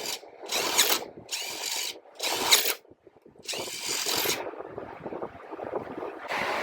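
A handheld power tool run in five short bursts, each about half a second to a second long, with brief pauses between them. A steady, even noise starts near the end.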